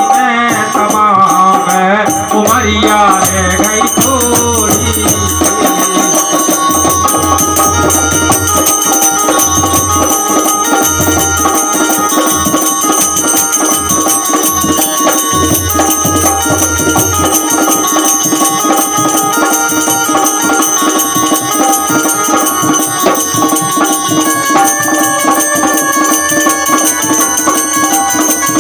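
Folk devotional bhajan music playing an instrumental passage: a hand drum such as a tabla with rattles or jingles over steady sustained notes. A singing voice trails off in the first few seconds, and the low drum beats stop about two-thirds of the way through.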